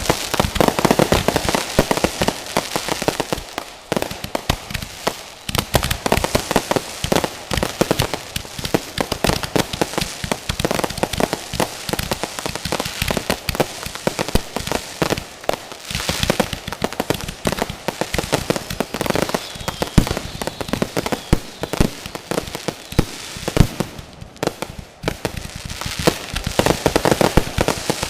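Fireworks going off in a dense, continuous barrage of rapid overlapping bangs and crackling, with a brief lull about 24 seconds in.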